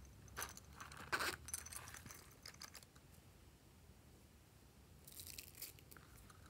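Quiet handling sounds of a small plastic container and tiny heart-shaped sprinkles: a few sharp clicks and rustles, the loudest about a second in, then a short rattling patter as the sprinkles are scattered onto the slime about five seconds in.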